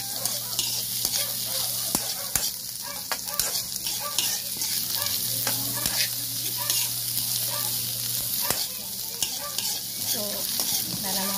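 Sliced onions and garlic sizzling in a little oil in a wok, stirred constantly with a metal spatula that scrapes and clicks against the pan at irregular moments over the steady frying hiss.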